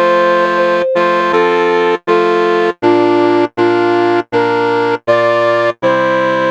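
Wind quintet playing a slow, hymn-like tune in sustained, organ-like chords, each cut off by a short clean break about every three-quarters of a second.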